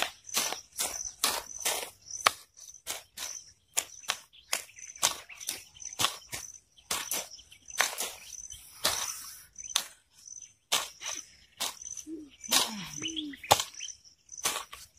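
Hand hoes chopping into soil, many quick irregular strikes, over a steady high-pitched cricket trill.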